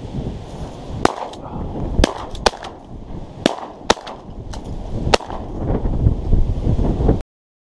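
A volley of shotgun shots, about eight sharp cracks in quick succession, over wind rumbling on the microphone; the sound cuts off abruptly near the end.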